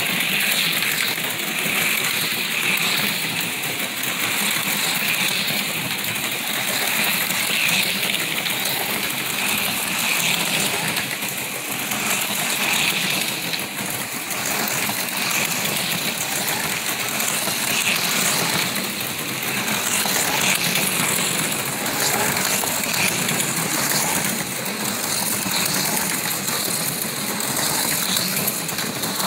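HO-scale slot cars lapping a plastic oval track at about half throttle: a steady high whir from their small electric motors and a rattle of the cars along the track, rising and falling slightly as they pass.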